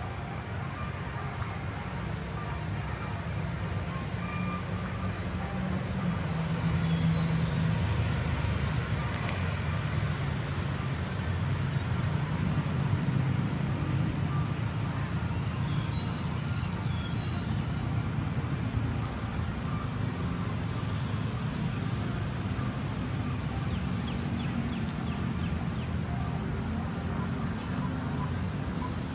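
Steady low rumble of city road traffic, growing somewhat louder over the first several seconds and then holding.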